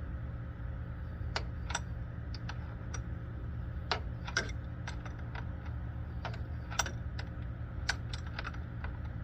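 Wrenches clicking and tapping on fuel line fittings as one fitting is held and the other turned: about a dozen irregular light metallic clicks over a steady low hum.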